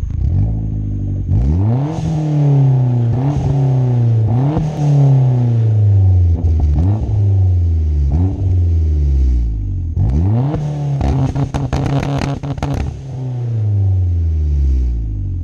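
Turbocharged 2.0-litre four-cylinder of a Hyundai Genesis Coupe, with an aftermarket downpipe and catback exhaust, being free-revved while parked: a series of quick throttle blips, each rising sharply in pitch and falling slowly back toward idle. About two thirds of the way in, a quick run of sharp crackles sounds over the revs.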